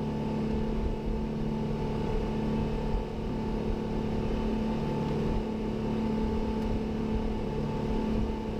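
Boat engine running at a steady speed, a constant drone with no change in pitch.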